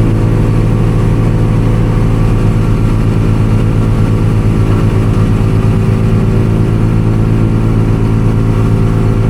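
A farm machine's engine running steadily at one constant speed, a loud, even, low hum.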